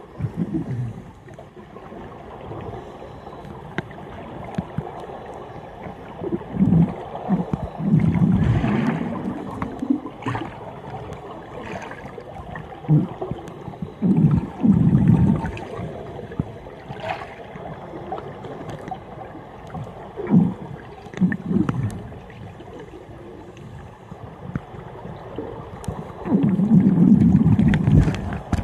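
Scuba regulator exhaust bubbles from divers breathing out underwater: a low gurgling rumble that comes back every five to seven seconds, the longest burst near the end.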